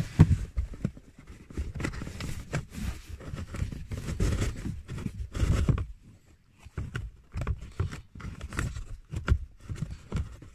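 Cabin air filter being slid by hand into its plastic housing, scraping and rustling against it. The handling is busiest in the first half, then quieter, with a few sharp clicks as it is pushed up into place.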